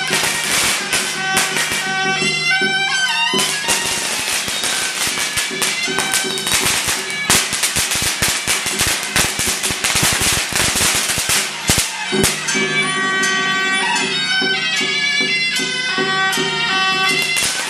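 Taiwanese Taoist ritual music: a reed-horn (suona) melody with percussion and a low steady tone. In the middle, from about four to twelve seconds in, dense sharp cracks crowd out the melody, which returns near the end.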